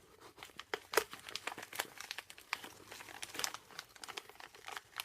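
Packaging being unwrapped by hand: a dense, irregular run of crinkling and crackling.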